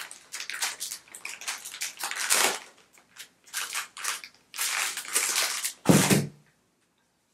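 Single-use wipe packet crinkling and tearing as it is pulled open by hand, in a string of short rustling bursts. A heavier thump about six seconds in.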